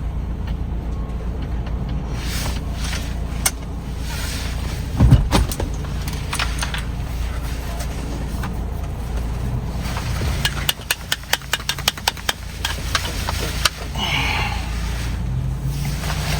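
Wind rumbling on the microphone throughout. There is a heavy knock about five seconds in. Later comes a run of quick, evenly spaced clicks from a ratchet turning a steering wheel puller to pull the wheel off the column.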